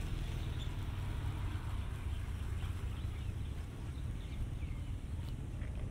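Outdoor ambience: a steady low rumble, with a few faint bird chirps above it.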